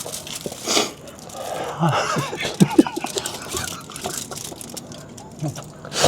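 Close-miked eating sounds: chewing and mouth noises, irregular and uneven, with a few sharp clicks about two and a half seconds in.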